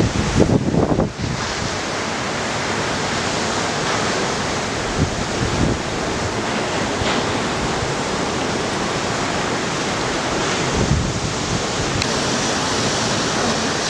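Ocean surf breaking and washing over a rocky point in a steady roar of white water. Low gusts of wind buffet the microphone about a second in and briefly again later.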